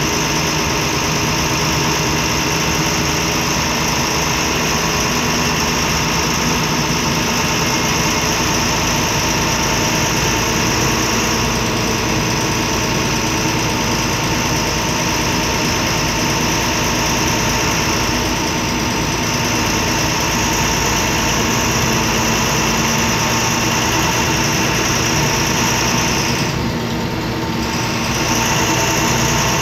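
MAN D0826 LOH six-cylinder turbodiesel of a MAN Lion's Classic city bus running, heard from inside the passenger cabin: a steady, loud drone that dips briefly near the end and then picks up again.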